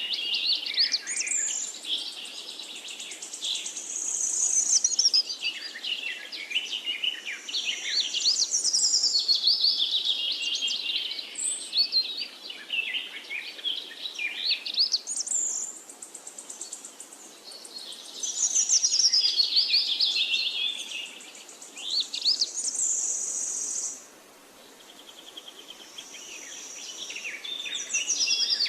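Songbirds singing: repeated phrases of quick, high chirps and trills, with short pauses between phrases.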